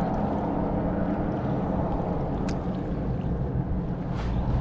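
Steady low rumble of wind on the microphone and harbour water washing against the rocks, with one light click about halfway through.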